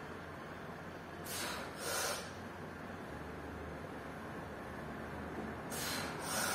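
A weightlifter's forceful, hissing breaths during a set of barbell bench press reps: a quick pair of breaths about a second in and another pair near the end, as the bar is locked out between reps.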